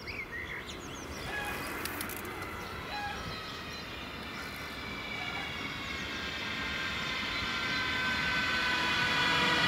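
K5000 Stadtbahn light-rail car approaching along the track, its motor whine and rail noise growing steadily louder. Birds chirp in the first few seconds.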